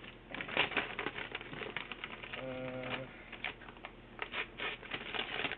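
Paper wrapping crinkling and tearing as it is pulled off a package by hand, a fast irregular run of rustles and crackles, with a brief hum about two and a half seconds in.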